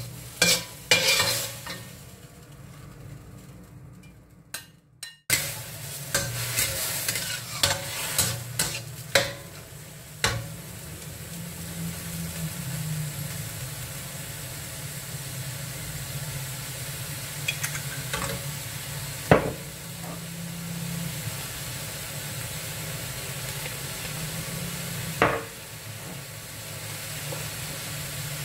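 Sliced beef with wood ear and white mushrooms sizzling in a steel wok while a metal spatula scrapes and clanks against the pan as they are stir-fried. The first few seconds hold only spatula scrapes and clinks. The steady frying hiss starts suddenly about five seconds in, with a few sharp clanks of the spatula on the wok rim.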